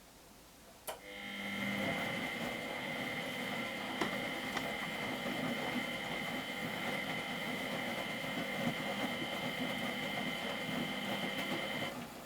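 Miele Professional WS 5426 washing machine's motor switching on with a click about a second in, then turning the drum with a steady whine over a low hum for about eleven seconds before stopping, as in its wash rhythm.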